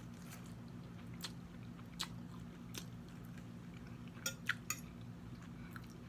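Close-miked chewing of a first bite of food, with scattered sharp clicks and mouth smacks, a quick cluster of them about four and a half seconds in, over a low steady hum.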